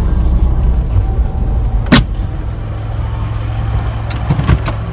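Car engine idling, heard from inside the cabin, with one sharp click about two seconds in and a few lighter clicks near the end as the driver's door latch is worked open.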